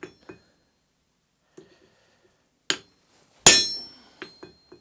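Hammer blows on a blacksmith's flatter, metal on metal: a few light taps, a sharper strike near the middle, then one loud ringing blow about three and a half seconds in, followed by small taps.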